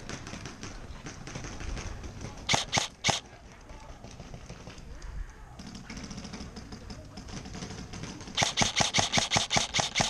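Airsoft gun firing: three quick shots about two and a half seconds in, then a rapid string of about ten shots near the end, roughly six or seven a second.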